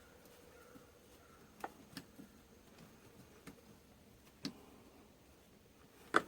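Faint, scattered light clicks and taps, a handful spaced about a second apart with a quick cluster of clicks near the end: a hose clamp and a hand tool being handled and worked.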